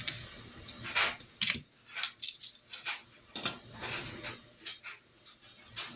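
Irregular light clinks, clicks and rattles of kitchen handling: metal tongs and seasoning shakers used over a pan of raw chicken legs being seasoned.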